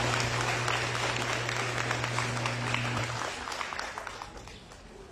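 Audience applauding, the clapping dying away over the last second or so. A steady low hum runs underneath and cuts off about three seconds in.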